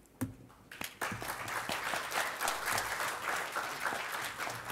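Audience applauding in a conference hall. The applause starts about a second in, after a couple of short knocks.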